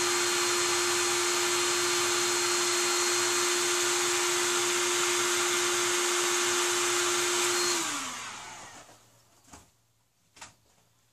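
Cordless power tool spinning a socket on a tractor wheel nut, running with a steady high whine. Nearly eight seconds in it winds down in pitch and stops, and a few light clicks follow.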